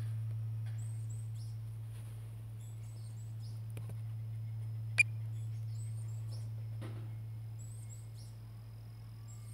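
Small birds chirping in short high calls over a steady low hum, with one sharp click about five seconds in.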